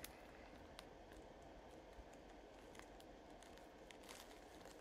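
Near silence: faint room hiss with a few light clicks of a sterling silver chain being handled in the fingers.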